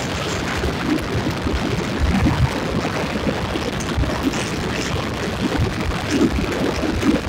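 Wind buffeting the microphone over the steady rumble of a vehicle moving along an asphalt road.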